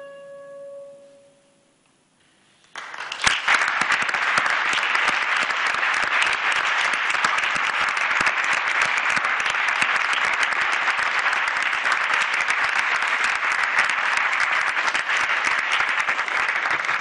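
The last held note of the alto saxophone and piano dies away, a moment of silence follows, and then audience applause breaks out about three seconds in and continues steadily.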